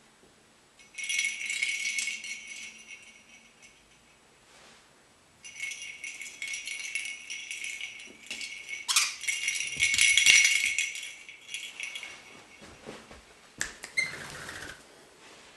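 Bell inside a hollow plastic jingle-ball toy jingling as a lorikeet pushes and rolls it across carpet, in a bout about a second in and a longer one from about five seconds, with shorter jingles near the end. A few soft knocks come about ten seconds in.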